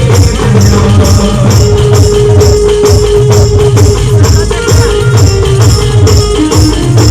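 Adivasi band music with a steady, driving beat of about two strikes a second on drums and jingling cymbals or tambourine. A held melody note sounds over it in the middle.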